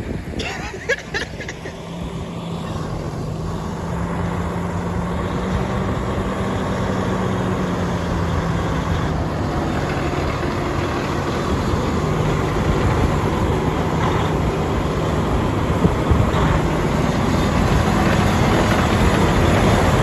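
Semi truck's diesel engine running steadily with a low hum, growing louder as the cab comes closer. A few light clicks about a second in.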